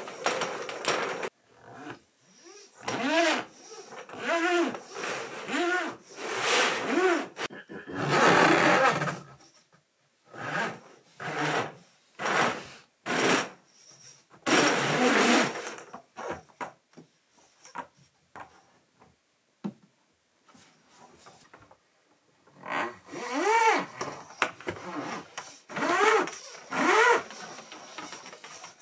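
Electrical conduit tubing rubbing and scraping against wood as it is worked into place. A run of short squeaks that rise and fall in pitch comes near the start, with louder scraping between them, then a quieter stretch, and more squeaks near the end.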